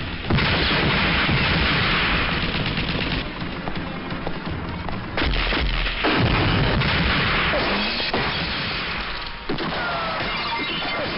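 Action-film battle soundtrack: booming blasts and gunfire over background music. Two big blasts, one just after the start and another about five seconds in, each followed by a long rumbling roar.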